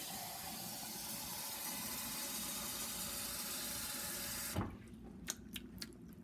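Kitchen faucet running a stream of hot water into a ceramic mug, shut off suddenly about four and a half seconds in. A few light clicks follow.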